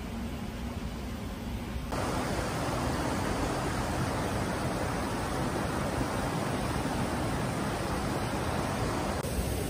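Steady rush of flowing water, an even hiss with no distinct splashes, which gets louder about two seconds in.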